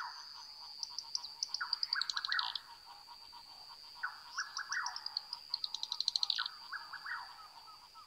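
Forest animal chorus: groups of short chirping calls repeating every second or so, some low and sweeping down, some in quick high series, over a steady high-pitched tone.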